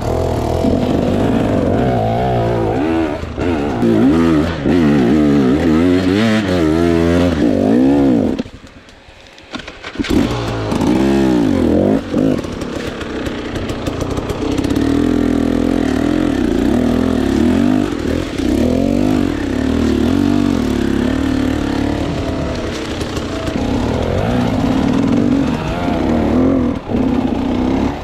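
Dirt bike engine being ridden, its pitch rising and falling with the throttle, then running more steadily in the second half. The sound drops away briefly about eight seconds in.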